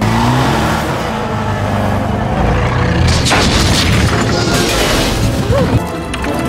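Movie sound mix: a Ford Anglia's engine revving hard as the car rips a barred window grille out of a brick wall, with a heavy crash of metal and masonry about three seconds in. A deep booming rumble runs under it all.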